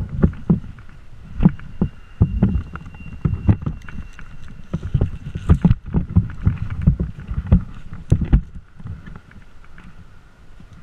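Irregular thumps, knocks and rope rubbing as a tree climber pulls and handles his climbing rope around the trunk and shifts his weight in the tree, picked up close by a body-worn camera.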